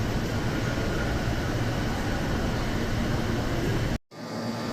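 Steady hum and rumble of an electric train at a station platform. About four seconds in, the sound cuts out to silence for a moment, then the hum returns.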